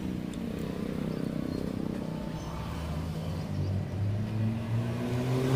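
A motor vehicle engine running, its low pitch stepping up in the second half.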